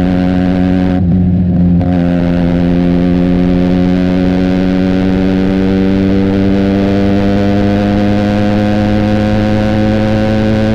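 Benelli TNT 300's parallel-twin engine through an Austin Racing aftermarket exhaust, running under way at steady revs. The note wavers briefly about a second in, then rises slowly as the bike gathers speed.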